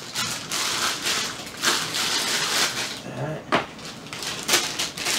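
Clear plastic packaging bag crinkling and rustling as it is handled and pulled off parts packed in foam. The crinkling is dense for the first few seconds, then eases to a few sharper crackles.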